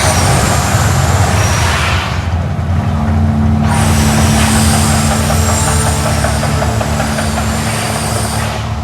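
Volcano show effects played loud: a deep, continuous rumble under a loud hiss. The hiss cuts out for about a second and a half about two seconds in, then returns, and a steady low tone joins in.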